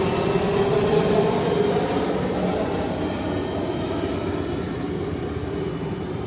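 Helicopter flying past: a steady rumble of rotor and engine with a high, constant turbine whine, slowly fading as it moves away.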